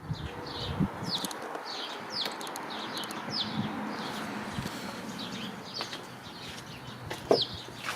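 Small bird chirping repeatedly, short falling chirps about two a second, over a steady hiss, with a couple of sharp knocks, the loudest near the end.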